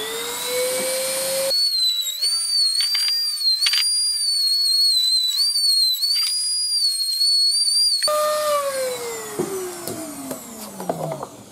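Handheld rotary tool with a thin cutting disc spinning up, then a high whine that wavers in pitch as the disc cuts through the plastic of a motorcycle fender riser, with a few clicks. About eight seconds in the motor is switched off and its tone falls away as it spins down.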